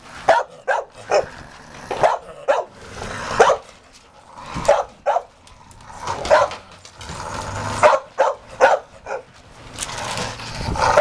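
Large dogs barking in play: many short, sharp barks coming irregularly, one after another.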